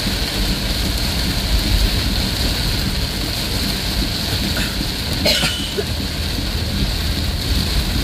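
Heavy rain pelting a moving vehicle's roof and windshield, heard from inside the cab, as a steady loud hiss over the low rumble of the engine and wet road. A brief sharp click cuts through about five seconds in.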